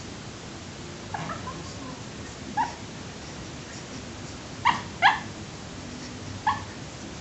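Boxer puppy barking and yipping in its sleep while dreaming: five short calls, the loudest two in quick succession a little past the middle, over a steady hiss.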